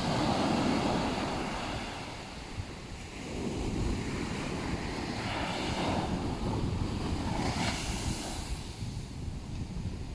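Ocean waves breaking on a beach. One surge swells at the start and another builds about three and a half seconds in, and a higher hiss of wash comes about three-quarters of the way through.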